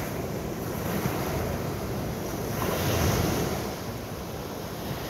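Sea waves pounding in and breaking on a beach, with wind buffeting the microphone.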